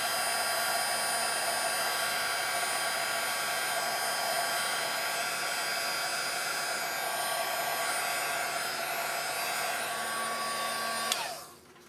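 Craft embossing heat gun blowing steadily while melting embossing powder on the tag, a steady whir with a faint even whine from its fan motor. It is switched off near the end and the sound cuts off.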